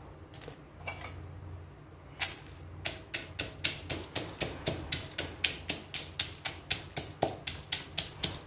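Stone pestle pounding roasted dried chilies, garlic and shallots in a stone mortar for laab chili paste: a single knock about two seconds in, then steady sharp knocks at about four a second.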